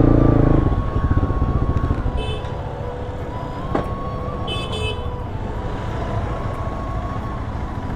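Motorcycle riding in road traffic, its engine and road noise running steadily, louder in the first second. Two short vehicle horn toots come about two and four and a half seconds in.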